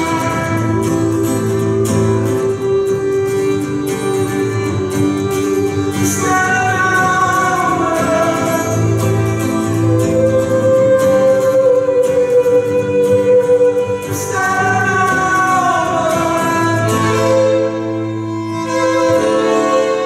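Live acoustic violin and acoustic guitar playing together, the violin plucked for most of the passage and taken up with the bow near the end, over strummed guitar chords.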